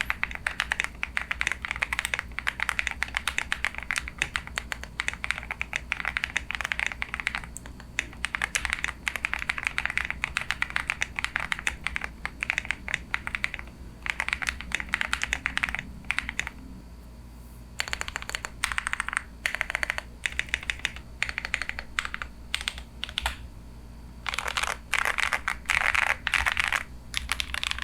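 Akko ACR67 gasket-mounted acrylic mechanical keyboard with tactile Akko Ocean Blue switches being typed on, fast runs of keystrokes with short pauses. Near the end comes a louder, fuller flurry of keystrokes.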